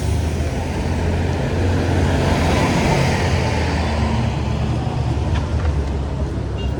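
Close road traffic: a vehicle engine runs nearby with a steady low hum, and the noise swells about two to three seconds in as traffic passes.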